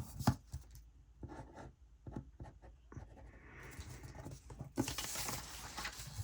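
Handwriting on paper: a few light taps, then a pen scratching and paper rustling, fuller for a second or so near the end.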